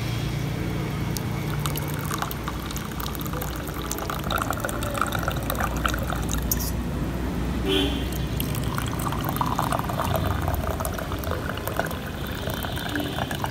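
Hot tea poured from a steel pot through a fine mesh strainer into glass cups: a splashing trickle in two spells with a short break between.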